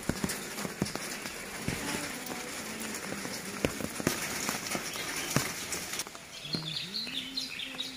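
Steady rain falling, with many separate drops ticking and pattering on leaves and surfaces. About six seconds in the rain sound drops away and a brief pitched sound follows.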